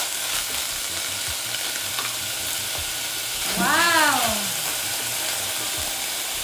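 Chopped onion sizzling in hot olive oil in a stainless steel saucepan, stirred with a wooden spoon, with a steady hiss and light spoon clicks. It is frying harder than the gentle sweating intended. About four seconds in comes a short wordless voice sound that rises and falls in pitch.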